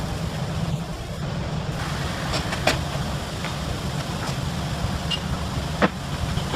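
Workshop machinery running with a steady low hum, with a few sharp metallic clicks, two of them clearer than the rest.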